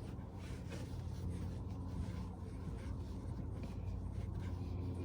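Faint rubbing and scraping of hands turning a plastic oil filter housing cap tight by hand, over a steady low hum.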